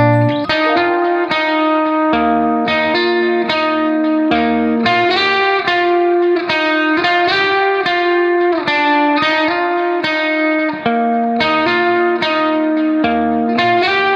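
Background music: a melody of quick plucked notes, several a second, over a bass line that comes and goes.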